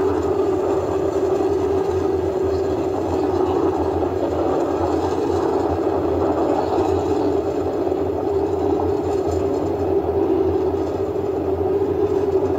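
Falcon 9 rocket's first stage, its nine Merlin engines, heard during ascent as a steady, unbroken rumble.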